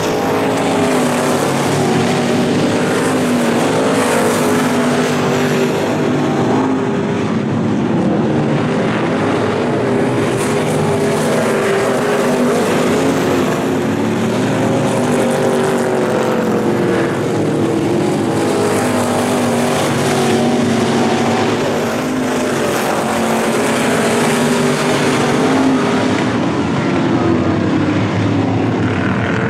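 Several Super Street dirt-track race cars with V8 crate engines running at speed in a pack. Their overlapping engine notes rise and fall steadily as the cars circle the track.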